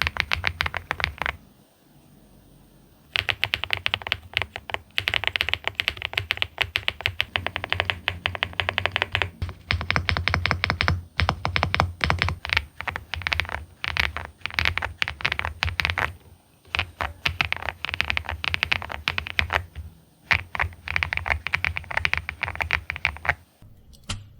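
Typing on a Mchose GX87 mechanical keyboard with KTT Vintage White switches: quick runs of keystroke clicks, broken by a pause of about two seconds near the start and a few short breaks later.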